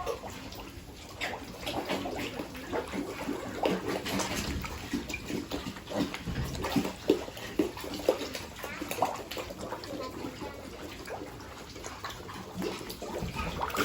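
Piglets grunting and squealing in many short calls over running, splashing water while they are bathed.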